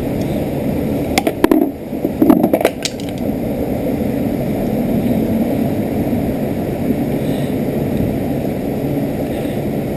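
A handful of sharp clicks and knocks from small hardware being handled at the battery terminal, bunched between about one and three seconds in, over a steady low rumble.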